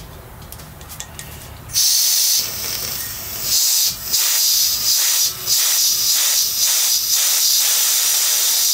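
Propane gas hissing out of a 1 lb camping cylinder's valve, held open with needle-nose pliers to bleed off vapour pressure so that liquid propane can flow in from the bigger tank. The loud hiss starts about two seconds in, surges and dips several times, and cuts off sharply at the end.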